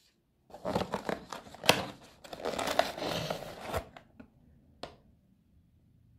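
Close rustling and crinkling, dense with sharp clicks, for about three seconds, then a couple of single clicks.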